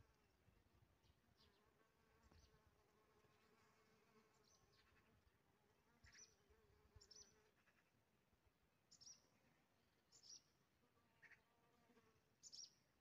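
Honeybee buzzing faintly and steadily as it forages in an open rose. From about six seconds in, a few short high chirps stand out over the buzz.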